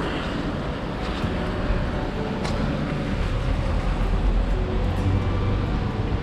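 Steady city street traffic noise, a continuous low rumble with a hiss on a rain-wet road.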